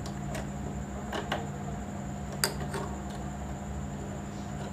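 Small metal clicks and clinks as a screwdriver works the feed-dog screws of a sewing machine and the loosened feed dog is handled. There are a few sharp ticks, the loudest about halfway through, over a steady low hum.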